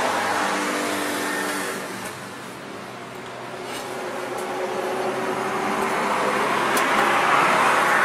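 Passing road traffic: engine and tyre noise that fades over the first couple of seconds, then builds again to its loudest near the end, with a few faint clinks in between.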